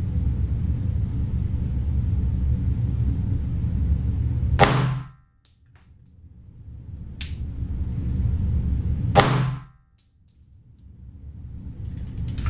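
Two .45 ACP pistol shots from a Glock 21, about four and a half seconds apart, with a steady low hum between them. After each shot the sound drops away sharply and then slowly comes back.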